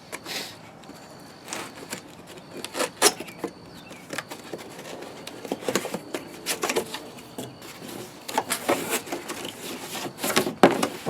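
Cardboard box being opened and handled: irregular rustling, scraping and sharp clicks of cardboard and packaging.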